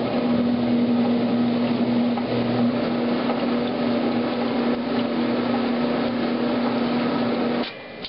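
1963 Maytag A700 top-loading washer agitating a full tub of laundry: a steady motor and gearbox hum with water churning. It cuts off suddenly near the end.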